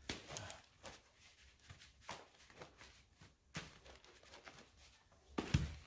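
Hands squeezing and working a freshly mounted bicycle tire around its rim, with faint rubbing and small knocks, to check that the inner tube is not pinched between tire and rim. A louder thump comes about five and a half seconds in.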